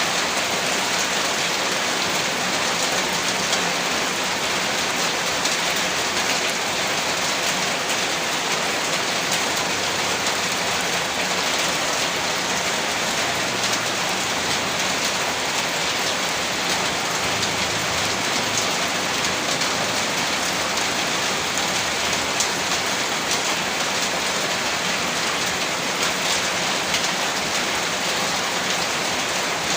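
Steady heavy rain falling on a rooftop, a dense even hiss of drops with fine ticks of individual drops, with no let-up or change.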